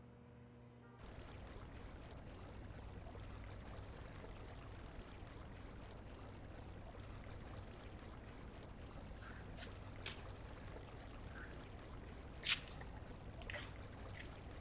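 Faint steady outdoor ambience: an even hiss with a low hum underneath. In the last few seconds a handful of short, sharp high clicks or chirps stand out, the loudest about two seconds before the end.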